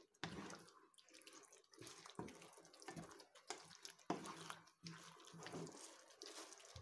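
Spoon stirring a thick beef stew in a pan: faint wet squelching and sloshing of the sauce, with irregular clicks of the spoon against the pan and one sharper knock about four seconds in.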